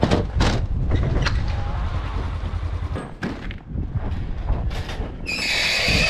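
Footsteps crunching on packed snow over a steady low rumble. About five seconds in comes a loud hissing scrape lasting just over a second, as a foot goes up onto the trailer deck.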